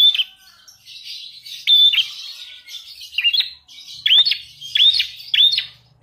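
Lovebird singing a learned prenjak (prinia) song: about six sharp, high chirps, each dropping steeply in pitch, coming faster near the end, over a soft hissing chatter.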